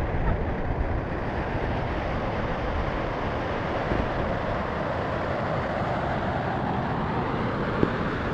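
Waterfall: a steady, continuous rush of falling water, deep and even throughout.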